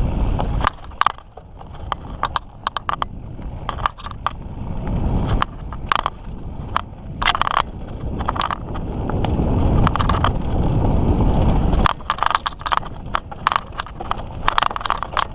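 Mountain bike being ridden over a dirt trail: a low rumbling noise that swells and fades, with many sharp clicks and rattles as the bike goes over bumps.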